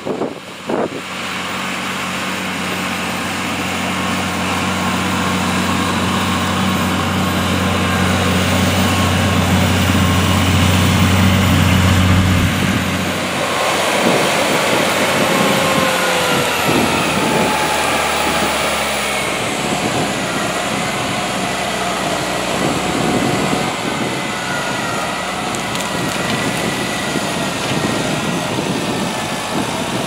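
Fendt 936 Vario tractor's diesel engine working hard under load, pulling a six-furrow Lemken Juwel 8 reversible mounted plough through the soil. The steady deep hum grows louder over the first dozen seconds. About halfway through, its note changes and slides lower as the tractor comes close and passes.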